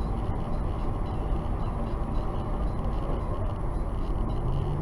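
Steady low road and engine rumble of a moving car, picked up by a dashcam, with no distinct impact.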